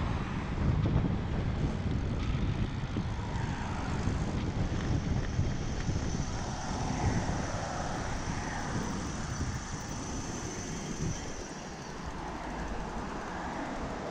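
Wind rumbling on the microphone of a moving road bike's onboard camera, with steady road noise; the low rumble eases near the end.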